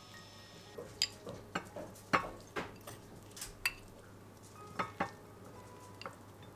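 Kitchen utensils clinking and knocking against dishware, about a dozen irregular sharp clinks, the loudest about two seconds in.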